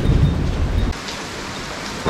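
Thunder rumbling low under steady rain in a tropical thunderstorm; the rumble cuts off suddenly about a second in, leaving the even hiss of rain.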